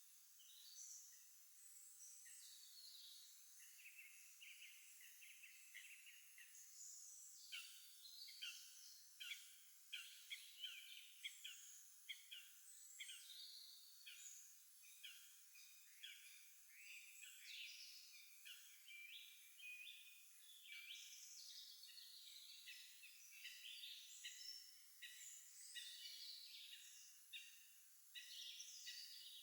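Faint spring chorus of several songbirds singing at once: overlapping runs of short, quick, high notes, busiest in the middle of the stretch.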